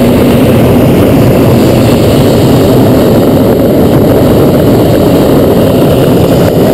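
Hot-air balloon's twin propane burner firing, a loud, steady, deep rushing noise as it heats the envelope.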